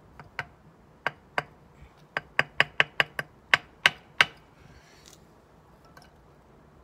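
Steel brick trowel tapping sharply against brick and mortar, about a dozen quick taps over four seconds, coming fastest in the middle, while a mortar fillet is worked around an air brick.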